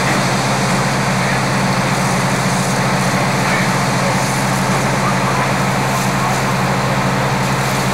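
A fire engine's motor running steadily at a fire, a constant low drone with a rushing hiss over it.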